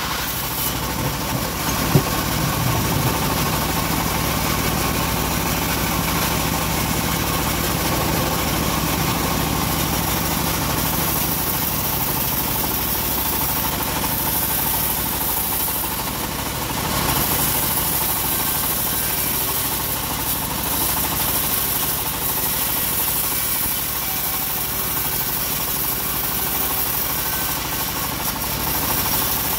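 Homemade bandsaw mill running steadily while teak timber is sawn into battens, a continuous machine drone with the blade cutting. A single sharp knock about two seconds in.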